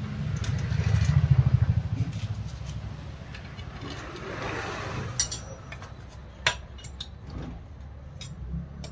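A small engine running, swelling to a fast pulsing beat about a second in and then dying down to a lower steady run, with a few sharp metallic clicks near the middle.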